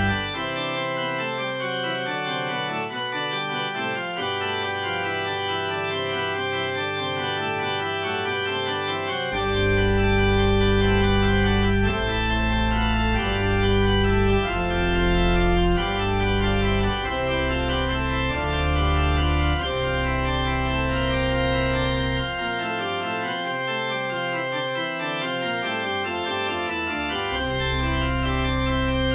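Organ playing a closing voluntary after the dismissal: slow, sustained chords that change every second or so. Deep bass notes are absent at first, come in about nine seconds in, drop out again for a few seconds past the twenty-second mark, then return.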